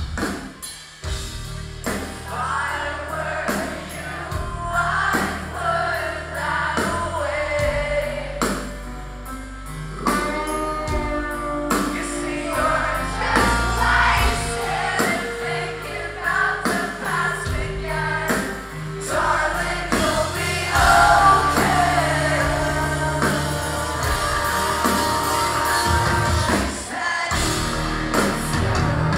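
Live rock band playing a song with electric guitars, drums and a lead vocal singing the melody, heard through the hall's PA.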